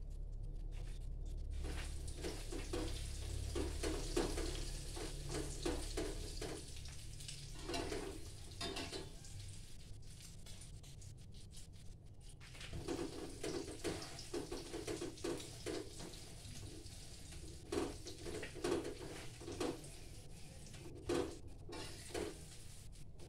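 Spatula scraping and stirring in a wok over a gas flame while an egg omelette fries in oil, burnt on the underside. The strokes come in runs, with a pause of about two seconds near the middle.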